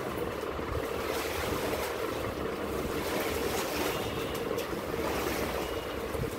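Standing rainwater swishing steadily as a long-handled floor wiper pushes it across wet terrace tiles.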